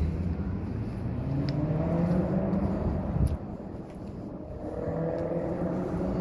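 A motor vehicle's engine speeding up on a city street, its note rising in pitch twice. There is a brief knock about three seconds in.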